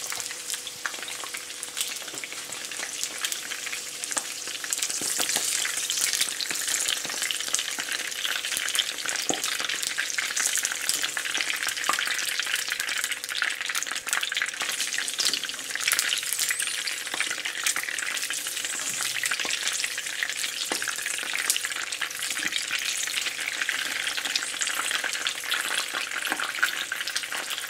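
Whole green peppers frying slowly in hot oil in a skillet over low heat: a steady sizzle dotted with many small crackling pops.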